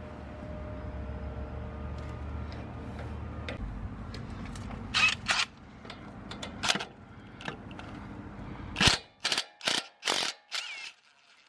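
Cordless impact driver hammering in short trigger bursts as it runs out a 10 mm bolt on an ABS sensor wire bracket: a couple of bursts about halfway through, then a quick run of five near the end.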